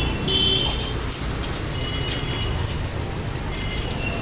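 Steady low rumble of road traffic, with a few short high-pitched tones and scattered clicks.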